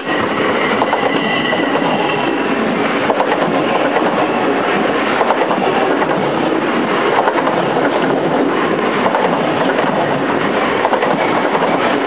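Long Island Rail Road train passing directly overhead, heard from the track bed beneath it: a loud, continuous clatter of steel wheels on the rails, full of sharp clicks.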